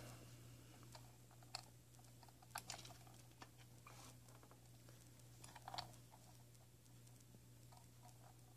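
Faint, scattered clicks and taps from a small plastic digital hanging scale being handled and its buttons pressed, a few seconds apart, over a steady low hum.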